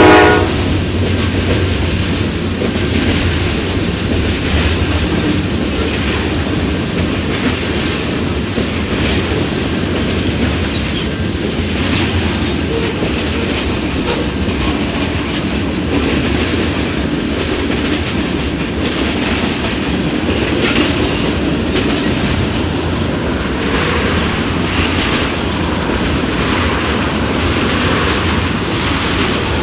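Freight cars of a CPKC manifest train, covered hoppers and tank cars, rolling past with a steady rumble and wheels clicking over the rail. The tail of the locomotive horn cuts off at the very start.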